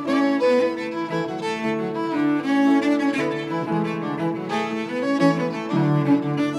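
Fiddle and cello bowing a tune together, a run of held notes that change pitch every fraction of a second.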